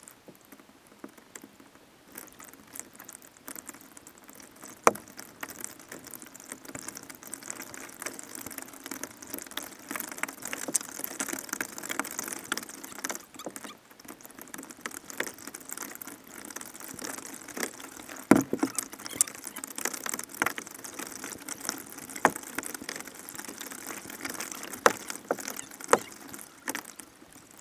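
Water splashing and dripping around a kayak in a steady pattering hiss, broken by a few sharp knocks.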